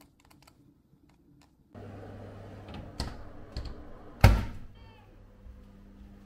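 A few soft clicks, then a loud thump about four seconds in, followed by a brief, faint cat meow.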